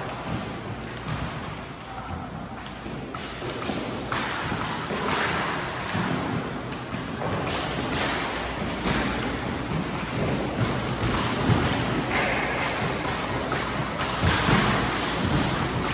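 Footballs being thrown and caught: irregular thumps of the ball landing in hands and bumping off surfaces. The thumps echo in an enclosed racquetball court.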